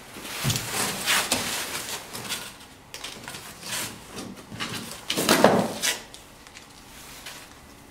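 Plastic wrapping and cardboard packaging rustling and scraping in uneven bursts as they are handled and pulled out of a box, loudest a little past halfway and dying down near the end.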